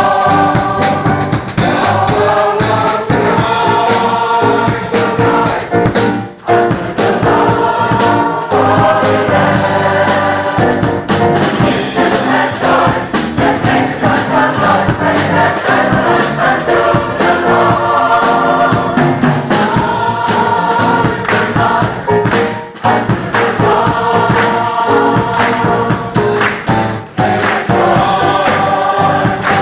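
Gospel choir singing with band accompaniment and a steady drum beat, many voices together.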